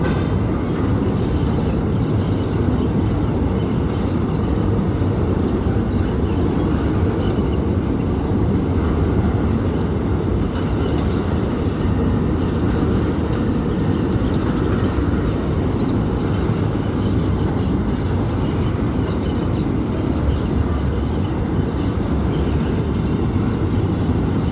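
Long MRS freight train rolling past: a steady rumble of steel wheels on rail, with scattered faint high ticks and squeaks.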